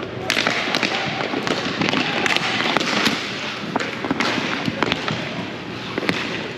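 Spectators clapping and cheering, swelling about a third of a second in, with many sharp claps and knocks throughout.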